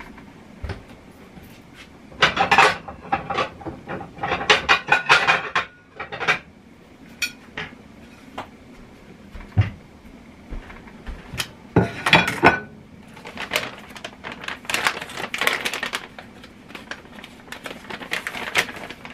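Kitchen utensils clinking and clattering against dishes and pots, in several bursts of quick knocks.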